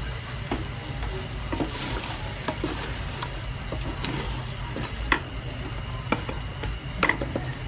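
Wooden spoon stirring coconut milk into fried chilli spice paste sizzling in a metal pot, with scattered light clicks and two sharper knocks about five and seven seconds in.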